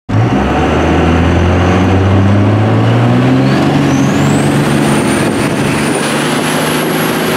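Turbocharged Cummins diesel truck engine pulling under acceleration, heard from inside the cab, with a turbo whistle that rises in pitch about three and a half seconds in and then holds high.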